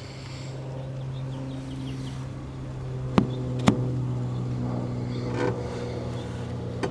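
Steady low hum with two sharp clicks about half a second apart, around three seconds in.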